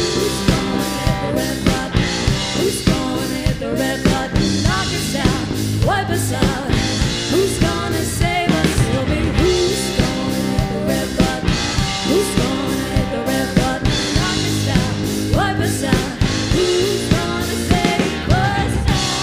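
Live rock band playing: female lead vocals sung over electric guitars, electric bass and a drum kit.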